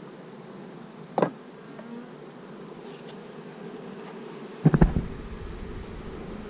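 Steady buzzing of honeybees around the hive, with a single knock a little over a second in and a louder cluster of bumps and rumble about five seconds in.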